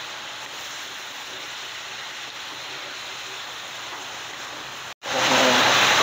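Village chicken pieces sizzling as they fry in oil with ginger, lemongrass, garlic and shallots: a steady hiss that cuts out abruptly about five seconds in and comes back much louder.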